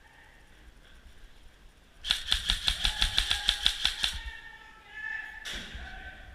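An airsoft gun firing a rapid string of about a dozen shots over two seconds, then one more single shot.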